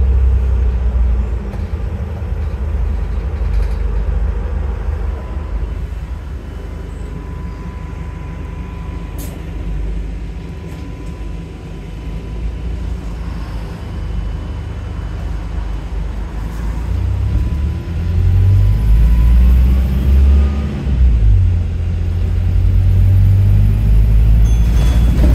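Alexander Dennis Enviro400 MMC hybrid double-decker bus on the move, heard from inside on the upper deck: a low drive rumble with a thin, steady electric-motor whine. The rumble grows louder and the pitch shifts upward as the bus speeds up in the last third.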